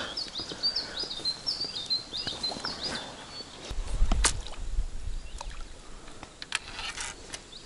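A small songbird singing a quick, repeated phrase of high chirping notes during the first three seconds. Scattered light clicks follow, with a brief low rumble about four seconds in.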